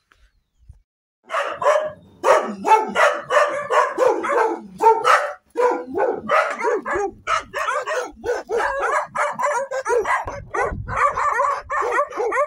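Dogs barking at the person filming in quick, unbroken runs of about three barks a second, starting a little over a second in.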